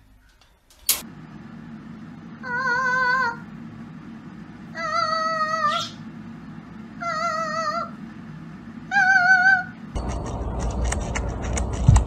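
A cockatiel calling: four drawn-out, wavering notes about two seconds apart, after a sharp click about a second in. Near the end a steady hiss with light clicking takes over.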